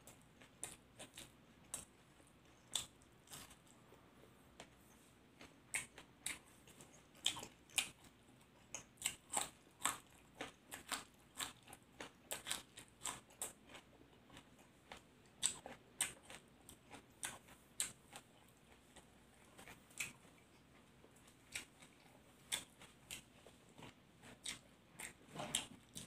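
A person chewing close to the microphone: a mouthful of grilled-pork larb with raw vegetables and herbs, giving irregular crisp crunches, few at first and coming thick and fast from about a quarter of the way in.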